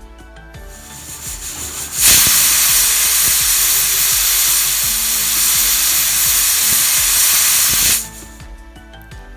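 Pressure cooker releasing steam: a loud hiss that builds for over a second, holds steady for about six seconds, then cuts off sharply.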